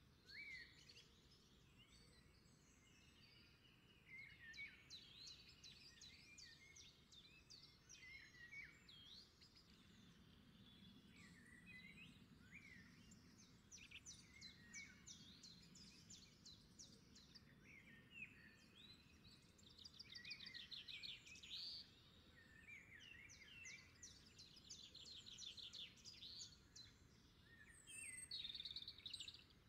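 Faint birdsong: several small birds chirping and warbling, with bursts of rapid trills in the second half.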